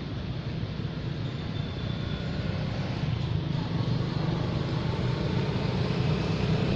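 Steady low rumble of outdoor background noise, growing slightly louder, with a faint short high tone about two seconds in.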